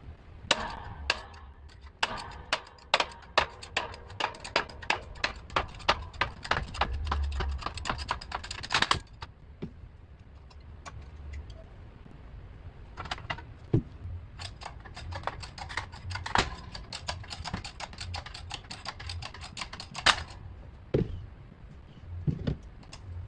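Hand ratchet wrench clicking in two long runs of quick, even clicks, with a pause of a few seconds between them.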